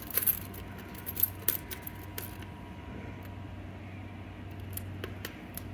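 A bunch of keys jangling and clinking, with several sharp clicks in the first two and a half seconds, as the right key is sought for a fire alarm pull station's second-stage key switch.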